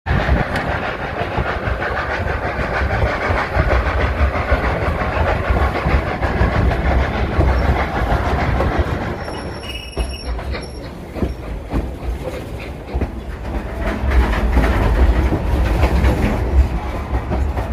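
Durango & Silverton narrow-gauge steam train running along the track with a steady rumble, easing off somewhat near the middle.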